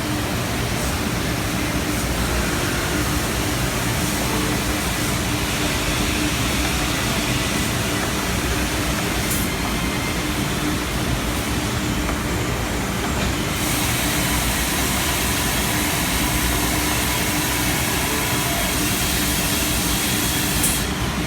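Nikuni LAX submersible sludge vacuum's gas-liquid pump running steadily, a constant motor hum over a broad rushing noise of suction; the hiss grows brighter about two-thirds of the way through.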